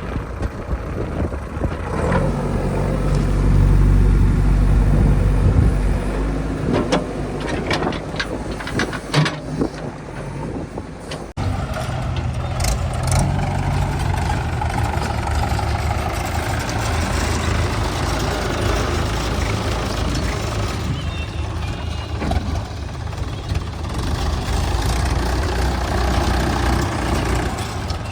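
Heavy diesel machinery running: a backhoe loader's engine working, growing louder for a few seconds near the start, with a few sharp knocks a little before the middle.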